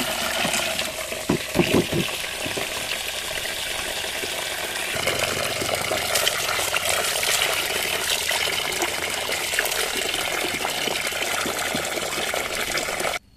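Tap water running steadily into a basin to wash vegetables, with a few light knocks in the first couple of seconds; the flow cuts off abruptly near the end.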